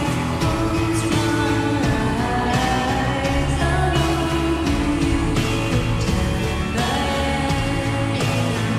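Slowed-down, reverb-heavy indie pop song with a woman's voice singing over sustained bass and guitar.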